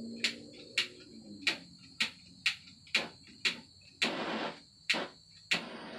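Sharp clicks at a regular pace of about two a second, each followed by a short hiss, over a faint steady high-pitched whine.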